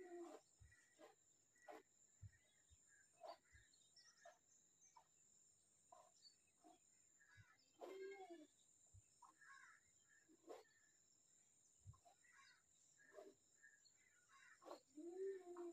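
Faint outdoor ambience: a steady high insect buzz with small birds chirping, and three short low calls, at the start, about halfway and near the end.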